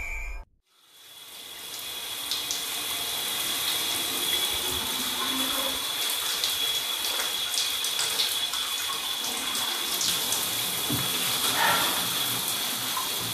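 Shower running, its water spraying steadily and draining into a bathtub; it fades in about a second in.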